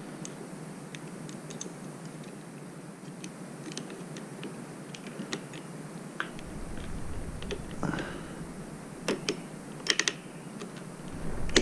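Small scattered clicks and taps of tools and metal parts being handled during motorcycle work, with a few sharper clicks about nine and ten seconds in.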